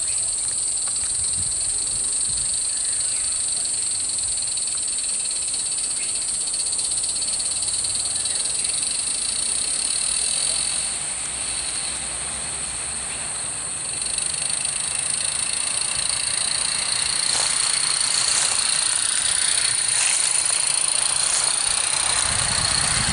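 A steady, high-pitched chorus of cicadas, with several sharp clicks in the last few seconds.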